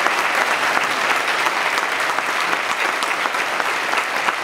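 An audience applauding: many people clapping at once in a steady, dense spread of hand claps.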